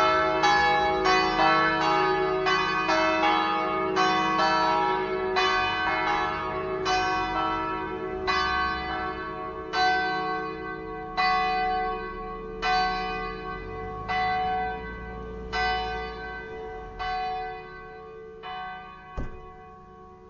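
The church's five bronze bells (E to B, recast by Colbachini of Padua in 1948) ringing together in full peal and dying away: the strikes grow sparser and fainter until single strokes come about a second and a half apart over a lingering hum. A sharp knock sounds near the end.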